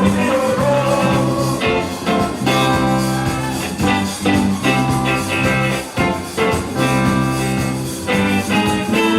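Instrumental band music with a steady beat, no singing.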